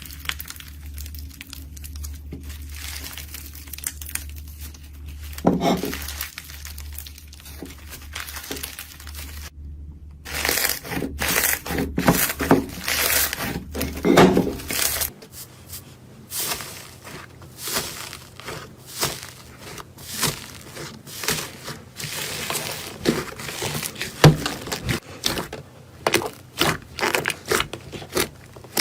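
Slime being squeezed and poked by hand, giving a crinkly, crunching crackle with many short clicks and pops. The pops come thicker in the second half, and a low hum runs under the first half.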